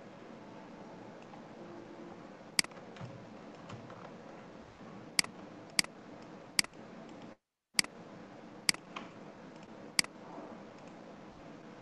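Sharp single computer mouse clicks, about seven spaced unevenly over a steady low hum. The sound cuts out completely for a moment just past the middle.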